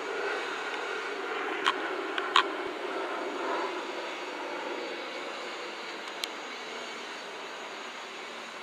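Small quadcopter drone's propellers buzzing steadily in flight, slowly fading a little, with a few short sharp clicks, two close together about two seconds in and one more near six seconds.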